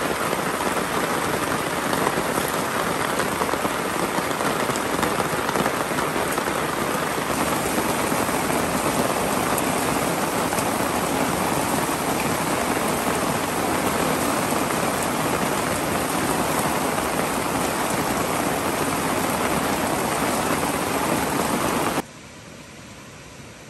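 Heavy rain pouring steadily onto the tarp overhead and the surrounding forest, a dense hiss that cuts off suddenly near the end.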